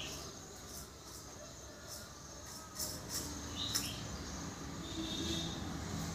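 Caged common myna giving a few brief high chirps and sharp clicks, over a steady faint high hiss.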